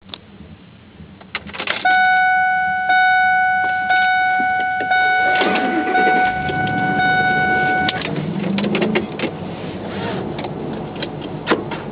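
Inside the cab of a 2001 Ford SVT Lightning pickup: a dashboard warning chime sounds as one steady tone, renewed about once a second, for about six seconds, among clicks and knocks. After the chime stops, the low rumble of the truck's engine grows louder.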